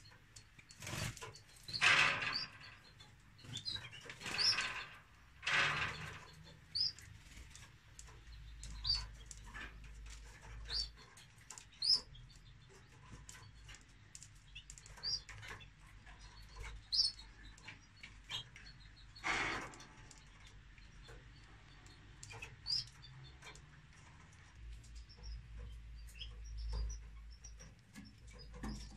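Caged canaries at a nest of chicks: scattered short, high chirps through the whole stretch, with several brief noisy bursts in the first six seconds and one more about twenty seconds in.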